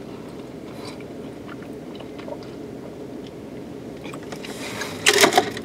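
Quiet chewing on a burger slider inside a car, with faint mouth clicks over the low steady hum of the cabin. Near the end there is a short, louder, noisy sip through a straw from a soda cup.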